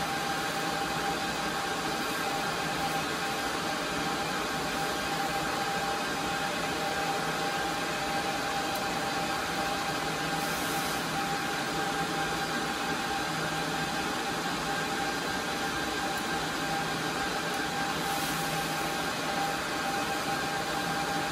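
Steady whir of the cooling fans in rack-mounted network switches, with a steady whine held under it.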